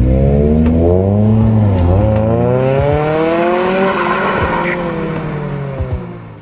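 Car engine revving hard as a car accelerates away: its pitch climbs, dips briefly about two seconds in, climbs again, then falls and fades near the end.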